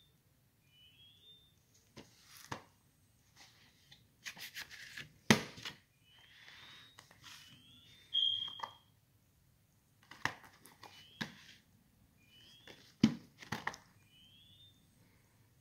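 A plastic 4K Blu-ray disc case being handled: scattered clicks, taps and rustles as it is picked up, set down and turned over, with one sharp louder click about five seconds in.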